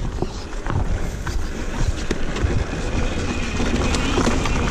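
KTM 150 XC-W two-stroke dirt bike being ridden off-road: a steady low rumble with scattered knocks, getting a little louder near the end.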